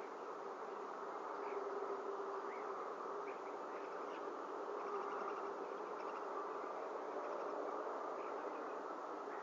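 A steady buzzing hiss, with faint short high chirps every second or so.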